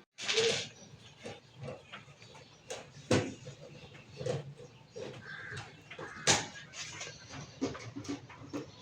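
Irregular clicks and knocks of tools and metal parts being handled while the top-cover screws of a single-tub washing machine are undone. There is a louder clatter about a quarter second in and sharp knocks about three and six seconds in.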